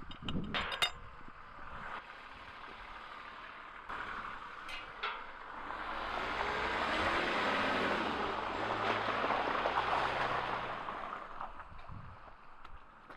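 A few sharp metal clinks near the start as a farm gate is unlatched. Then the P38 Range Rover's BMW M51 straight-six turbo-diesel and its tyres on the wet track swell up as it drives slowly through the gate and past, loudest midway and fading away near the end.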